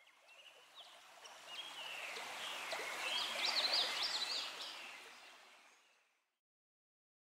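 Flowing stream water babbling, with small birds chirping in a quick series over it. It fades in a little over a second in and fades out again by about halfway through.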